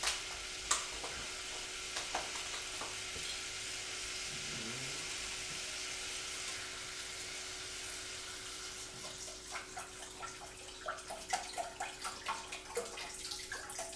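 Shallots sizzling in roast-chicken pan juices in a pot on a gas burner. About nine or ten seconds in, chicken stock starts glugging and splashing in from a carton, and the sizzle fades under it.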